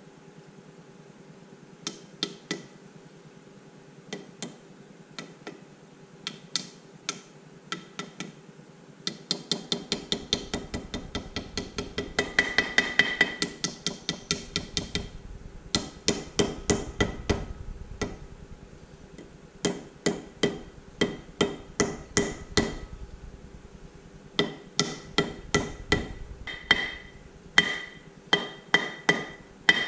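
Hammer tapping a new grease seal into the hub of a brake rotor. A few scattered taps come first, then from about ten seconds in, runs of quick light strikes at roughly three a second with short pauses between them.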